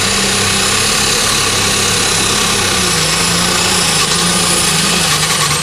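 Light super stock pulling tractor (an Allis-Chalmers) under full power down the track, its engine running hard with a high steady whistle over it. The engine pitch sags a little about three seconds in as it lugs against the sled, then drops off at the very end.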